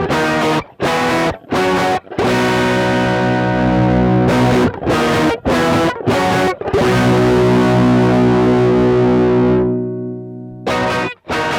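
Electric guitar through a Fulltone OCD overdrive pedal, playing distorted chords. Short choppy strums alternate with chords left to ring; the longest rings out for about four seconds, fades, and is cut off before more short stabs.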